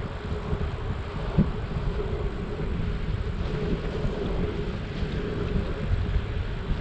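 Wind buffeting the microphone and road rumble while riding a hybrid bicycle, with a faint steady hum and a single knock about a second and a half in.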